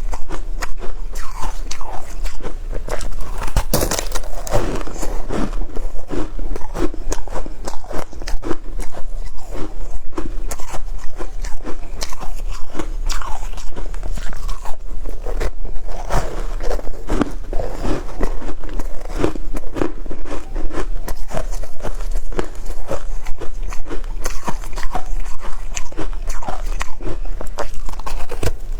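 Shaved ice being bitten and chewed close to the microphone: continuous rapid crunching with many small cracks.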